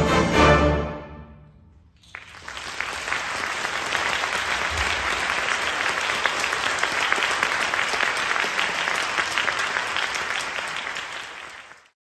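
A concert wind band's last chord, ending about a second in, then audience applause that begins about two seconds in, stays steady, and fades out near the end.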